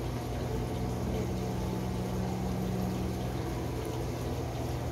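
Steady hum of an aquarium pump with a constant wash of water noise; a second, higher tone runs alongside the hum from about half a second to three seconds in.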